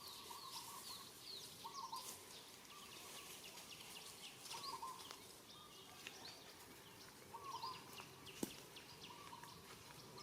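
Faint outdoor birdsong: quick high chirps keep coming, and a lower call repeats every couple of seconds. A single sharp click comes near the end.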